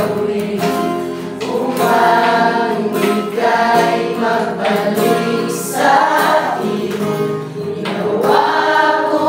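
A class of students singing together as a group, holding sung notes in phrases of a couple of seconds.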